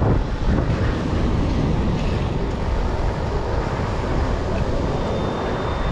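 Wind buffeting the microphone outdoors, a steady low rumble that rises and falls without a break.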